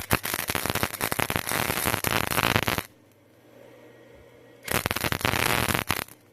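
Electric arc welder striking and running a bead on galvanized steel pipe: a dense crackling sizzle that sputters as the arc catches, runs about three seconds and stops. It comes back about four and a half seconds in for a shorter second run.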